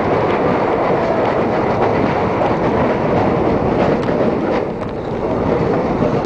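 Roller coaster train running fast on its steel track: a loud, steady rumble and rattle of wheels on the rails, easing briefly about five seconds in.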